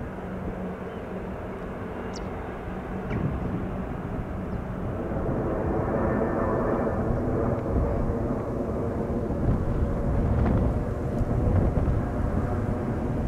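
Jet airliner engine noise: a Boeing 777-200 rolling out on the runway after landing, then a Boeing 787-8 on final approach, its engines growing steadily louder from about five seconds in.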